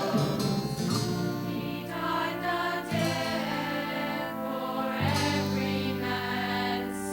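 Gospel music from a church singing group: held chords over a bass note that steps to a new pitch about every two seconds, with soft choir voices.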